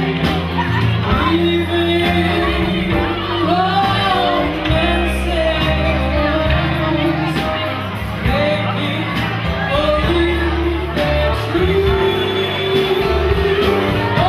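Live band performance: a woman singing lead into a microphone over electric guitar and drums, with held, sliding vocal notes.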